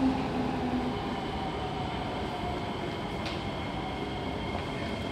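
Steady hum of a stationary Siemens C651 metro train standing at a platform with its doors open. A high, steady whine joins in about three seconds in.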